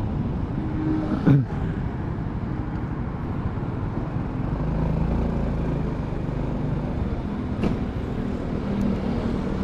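Motorcycle engine running at low speed with street traffic noise around it, heard from a helmet-mounted camera.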